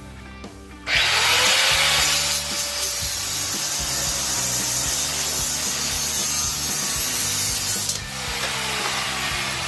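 A handheld power cutting tool starts about a second in and cuts with a loud hiss and a steady whine, then winds down with a falling whine about eight seconds in. Guitar music plays underneath.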